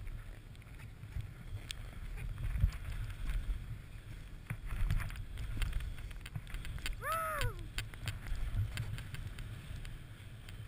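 Snowboard running through deep powder: a low rushing rumble of snow under the board and wind on the microphone, with scattered small knocks. About seven seconds in, a short cry rises and falls in pitch.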